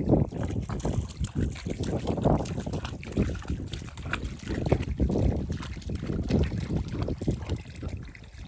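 Shallow water splashing and sloshing in irregular surges.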